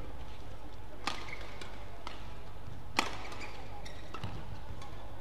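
Shuttlecock struck back and forth by badminton rackets in a doubles rally: sharp hits, the loudest about a second in and again at three seconds, with several lighter clicks between, over a low steady hum.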